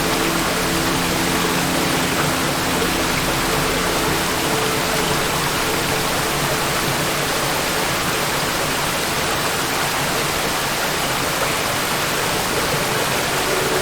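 Waterfall, water falling and rushing in a steady, unbroken roar of noise. Faint steady low tones sit under it near the start, then fade out.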